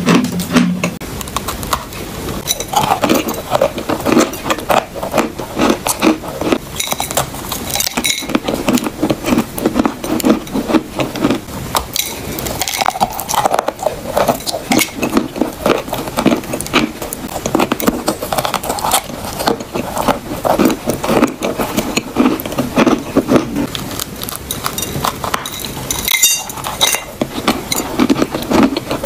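Close-miked crunching and chewing of chalk: bites snapping off pieces, then dense, crisp, irregular crackles as the chalk is chewed, some of it moist.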